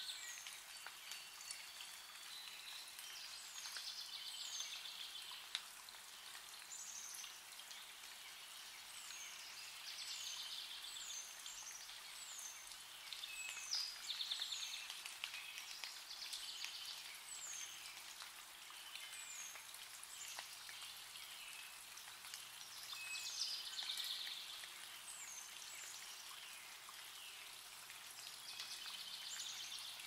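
Songbirds singing: a long series of short, high, down-slurred notes and several buzzy trills. Under them is a faint crackling patter from a pileated woodpecker digging with its bill into loose soil and a rotten buried root.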